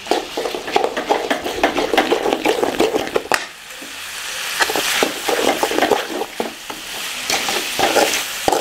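Steel spoon stirring and scraping chicken liver and gizzard pepper fry in a metal kadai, clinking irregularly against the pan over a steady sizzle, with a brief lull about three and a half seconds in.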